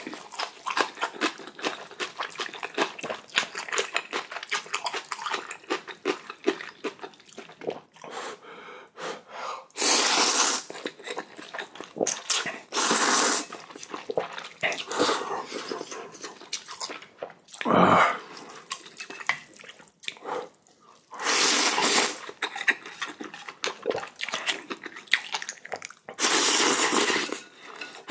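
Ramen noodles being slurped in about four long, loud pulls, with wet chewing and small mouth clicks between them. One short, sharp sound a little past the middle.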